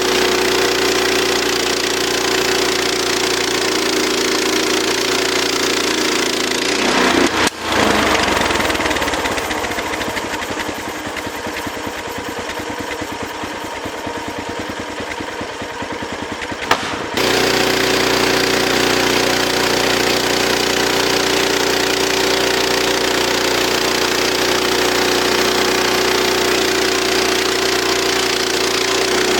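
Gasoline engine of a portable sawmill running steadily. About seven seconds in it changes abruptly to a quieter, evenly pulsing sound, then returns to the steady drone about ten seconds later.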